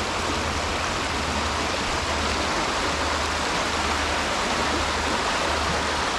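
The River Ness flowing fast, a steady rush of running water.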